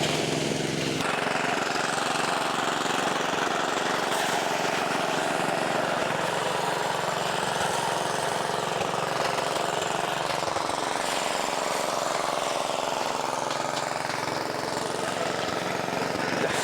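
Motorised rice threshing machine running steadily, its small engine driving the thresher that separates the grain from the straw.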